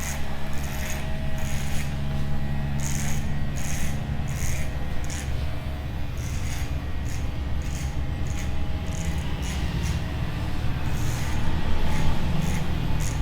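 Electric hair clippers buzzing steadily while cutting hair, with many short, crisp strokes through the hair.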